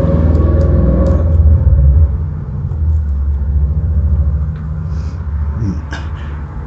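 Low, steady rumble of a nearby vehicle engine, loud for the first two seconds and then fading, with a few light clicks over it.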